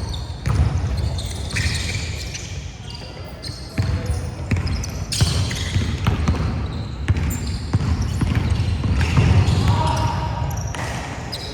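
Basketball game play in a gym: a ball bouncing on the court in a run of sharp knocks, with players' shouts over the echoing hall noise.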